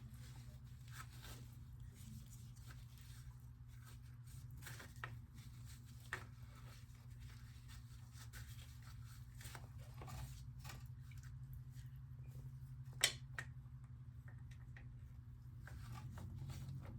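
Faint scattered clicks and rustles of hands working at the bike over a steady low hum, with one sharper click about 13 seconds in.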